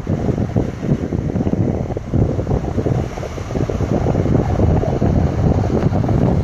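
Wind buffeting the microphone: a loud, gusty low rumble with no steady pitch.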